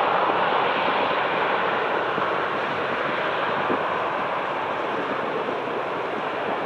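Boeing 777-300ER's two GE90-115B turbofans at takeoff thrust during the takeoff roll: a steady rushing jet noise heard from behind the aircraft, slowly fading as it moves away down the runway.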